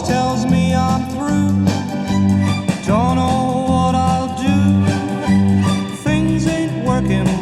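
Instrumental passage of a 1960 pop record: a lead melody with gliding notes over a steady, repeating bass line, with guitar and strings.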